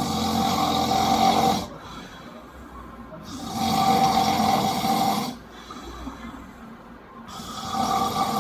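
A man snoring in his sleep: three long snores of about two seconds each, coming roughly every three and a half seconds, with quieter breath sounds between them.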